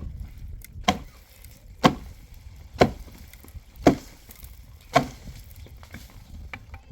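Six heavy blows struck into wood, evenly about a second apart, the last about five seconds in.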